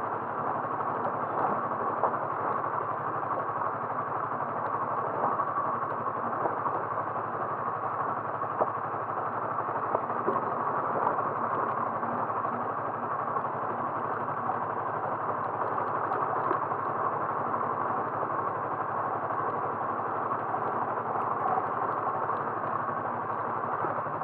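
Steady running noise of a vehicle on the road, engine and road noise with a few light rattles.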